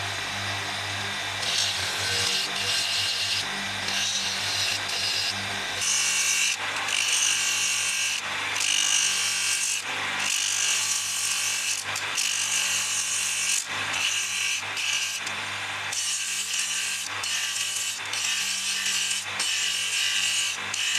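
Electric drum sander running, with a bamboo piece pressed against its spinning sanding sleeve in repeated strokes: the abrasive rasps on the wood over a steady motor hum.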